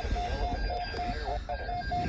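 Electronic alert tone from an emergency weather alert broadcast, beeping rapidly in a steady pattern of short beeps about three times a second over a low background rumble.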